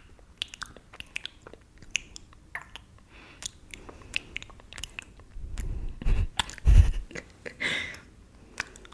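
Wet mouth sounds of fingers being sucked and licked close to a microphone: many sharp wet clicks and smacks, with a louder run of deeper thuds and smacks a little past the middle.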